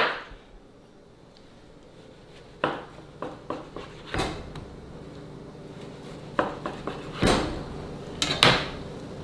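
A knife and metal tongs knocking and clattering on a cutting board as a meatloaf is sliced and the slices are moved: a handful of separate knocks, the last two near the end the loudest, over a faint steady hum.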